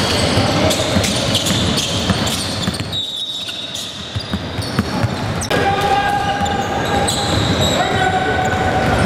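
A basketball bouncing on a gym floor during play, with shoes squeaking and players and spectators calling out. There is a brief lull about three seconds in.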